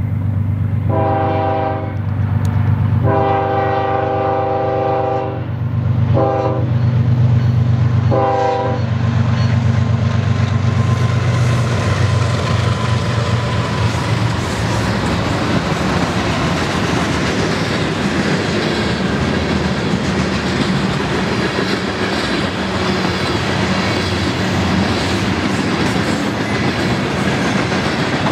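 BNSF freight train's GE ES44DC lead locomotive sounding its multi-note horn as it approaches: two long blasts, a short one and a final blast, the grade-crossing signal, over the diesels' low rumble. After about ten seconds the horn stops, the locomotives go by, and the freight cars follow with a steady clatter of wheels on the rails.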